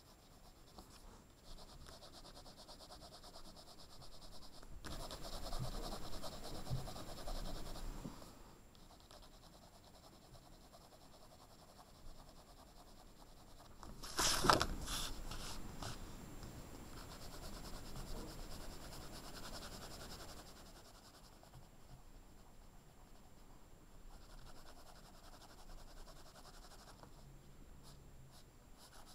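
Coloured pencil shading on paper: a faint, continuous scratchy rubbing of the pencil lead, louder in stretches as the strokes press harder. There is one short, louder burst about halfway through.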